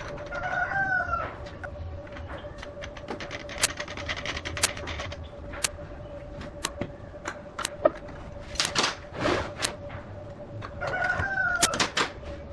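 A rooster crows twice, each crow about a second long, once near the start and once near the end. Between the crows come many sharp clicks and knocks, the loudest sounds, with a short stretch of hissing noise in the middle and a steady faint hum underneath.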